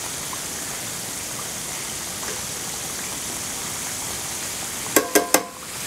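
Fish frying in hot oil in a cast iron skillet, giving a steady sizzle. Near the end come three quick metallic clinks from metal tongs.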